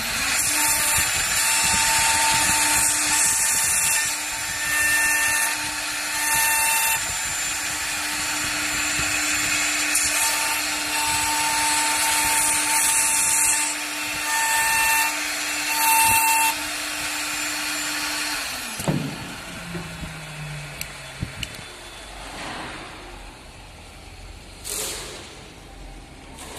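CNC door hinge and lock machine's router spindle whining and cutting into wood, the cutting noise swelling and easing as it works through its passes. About two-thirds of the way in the spindle winds down with a falling pitch, followed by a few quiet clicks and a short burst of noise near the end.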